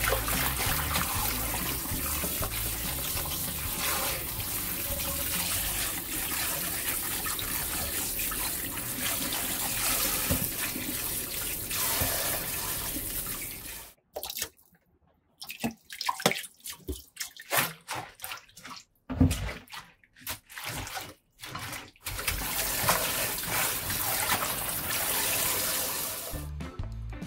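Tap water running into a stainless steel bowl of bok choy while hands rinse the leaves. About halfway the tap stops, leaving short irregular splashes and drips as the leaves are swished in the water, and the tap runs again near the end.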